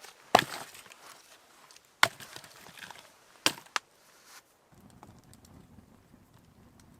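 Firewood being chopped: three sharp strikes about a second and a half apart, the last followed quickly by a lighter knock. A low steady noise comes in past the middle.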